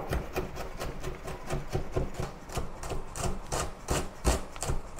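Chinese cleaver chopping red onion on a wooden cutting board: a quick, steady run of short knocks of blade on board, about three to four a second, as the onion is diced fine.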